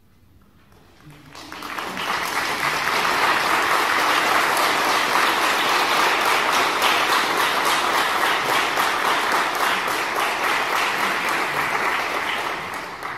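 Audience applauding: the clapping starts about a second in, builds quickly to full strength, holds steady, then dies away near the end.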